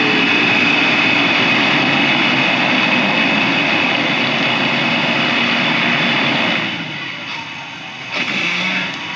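Off-road vehicle engines revving hard under load as both trucks drive during a strap recovery, pulling the Lexus GX470 up a slippery climb. The sound holds loud and steady for about seven seconds, then eases off.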